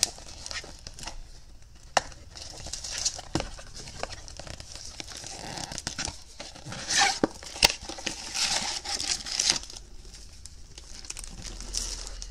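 A cardboard trading-card blaster box being opened and tipped, its wrapped card packs crinkling and rustling against each other and the box, with a few sharp clicks and taps.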